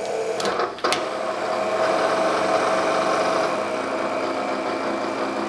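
Bridgeport variable-speed power table feed driving the milling table at rapid traverse: a steady motor-and-gear whine, with a brief dip and a click about a second in, cutting off at the end.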